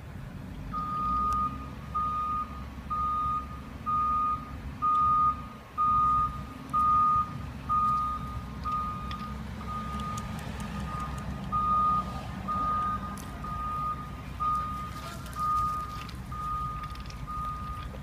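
A vehicle's reversing beeper sounding a single steady tone about once a second, over the low rumble of an engine.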